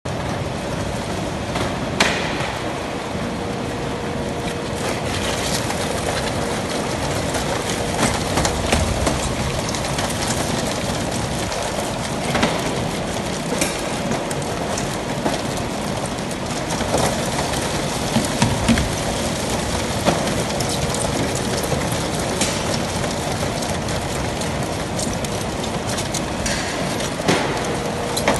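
Plastic fish crates and a load of langoustines (Norway lobsters) being handled on a steel table: scattered knocks and clatter over a steady rushing noise with a faint hum.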